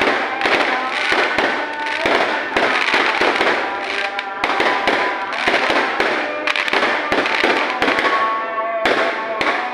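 Fireworks going off in a dense, continuous barrage, many bangs and crackles overlapping several times a second, with pitched tones running underneath.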